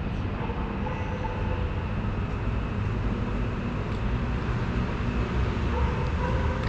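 Steady low rumble of city traffic, with no clear single event.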